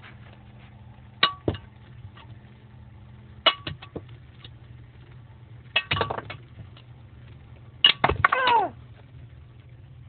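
Homemade battery-powered ceiling-fan rig running with a faint steady hum, broken by bursts of sharp metallic clinks and clatters with a brief ring. The bursts come about a second and a half, three and a half, six and eight seconds in. The last cluster is the loudest and ends in a short falling squeal.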